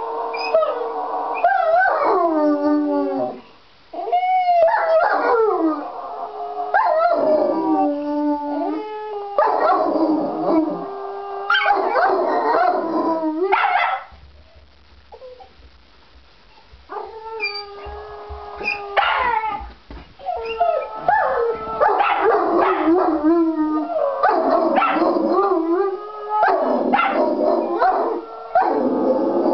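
A Jack Russell terrier and an Irish Wolfhound howling together in long, wavering howls, eager to be taken for a walk. The howling breaks off for a few seconds about halfway through, then starts again.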